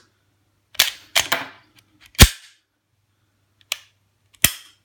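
HK VP9 9mm pistol being cycled by hand with snap caps: a series of about five sharp metallic clicks and clacks from the slide being racked, a snap cap ejecting and chambering, and the striker falling on dry fire. The loudest click comes about two seconds in.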